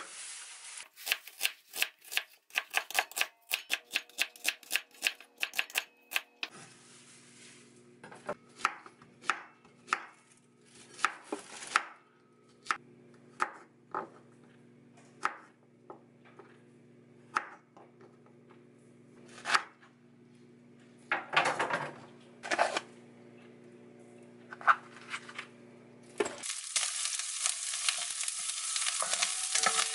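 Kitchen knife cutting onion and garlic on a wooden cutting board: quick, even strokes at first, about four a second, then slower, scattered cuts. Near the end, garlic begins sizzling in olive oil in a wok.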